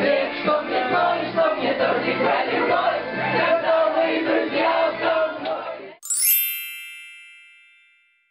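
A group of people singing together, which cuts off abruptly about six seconds in. A bright chime with a high sparkling run follows and rings out, fading away.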